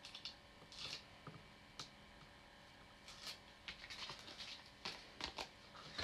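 Faint scratching and rustling of cardstock being handled, with scattered small clicks as the paper backings are peeled off foam adhesive dimensionals.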